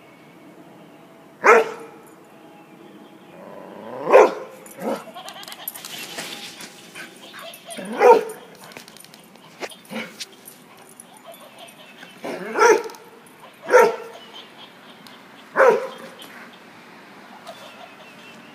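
Airedale terrier barking in single sharp barks a few seconds apart, about half a dozen loud ones with softer yips between.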